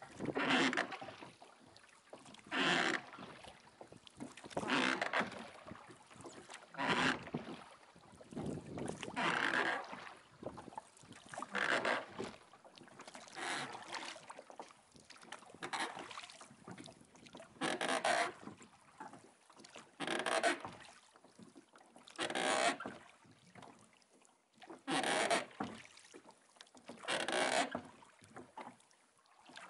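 Oars of a small rowing boat pulling through choppy water, a splash and rush of water with each stroke, in a steady rhythm of about one stroke every two seconds.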